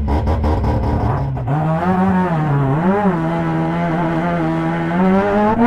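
Rotary engine of a stadium race truck, heard from inside the cab. It runs low and rough for about a second and a half, then pulls hard, its pitch rising, dipping briefly and rising again, and climbing once more near the end.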